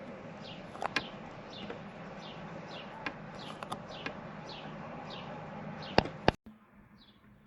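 A bird repeating a short, falling chirp about twice a second over a steady low hum, with a few sharp clicks. Two loud clicks come about six seconds in, and then the hum cuts off suddenly while the chirping goes on more faintly.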